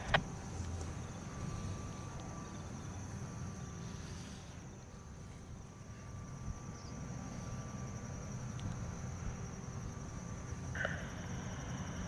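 Outdoor ambience: a steady high-pitched chirring of crickets over a low rumble of distant traffic.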